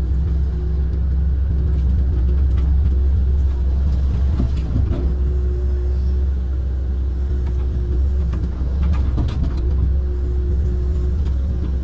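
Kobelco amphibious excavator's diesel engine running steadily under load, heard from the cab, with a steady hydraulic hum. Brush and branches crackle and snap as the bucket tears through the bank's vegetation, a few times around the middle and again near the end.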